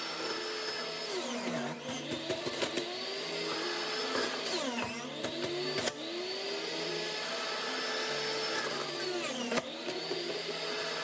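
Hamilton Beach Big Mouth Pro centrifugal juice extractor running as pieces of carrot are pressed down its feed chute. Its motor whine dips in pitch and recovers about three times as the pieces are ground.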